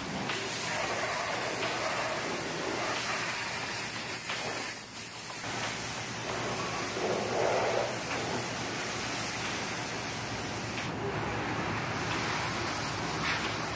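Pressure-washer spray hitting a semi truck's cab, a steady rush of water, with a brief break about five seconds in.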